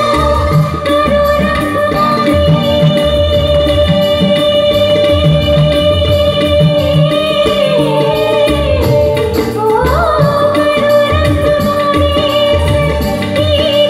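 Live Hindi song performed by a woman singing into a microphone, with keyboard and a steady beat behind her. She holds one long note that slides down and climbs back up about two-thirds of the way through, then holds again.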